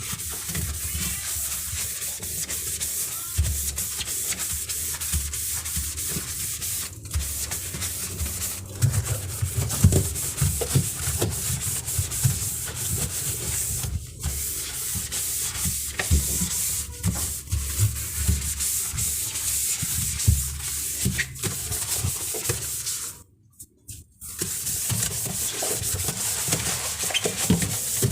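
Steady hand scrubbing and rubbing of a surface, a continuous rough scraping hiss with small irregular knocks, typical of cleaning by hand. It breaks off for under a second about 23 seconds in.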